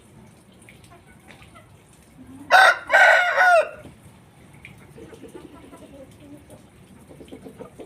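Aseel rooster crowing once: a short, loud crow of about a second, a brief first note and then a longer call that falls in pitch at the end. Faint rapid low pulses follow near the end.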